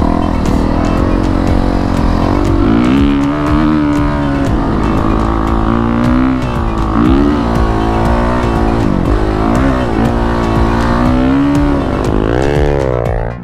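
Honda CRF450RX dirt bike's single-cylinder four-stroke engine under throttle in sand dunes, its revs climbing and dropping again and again.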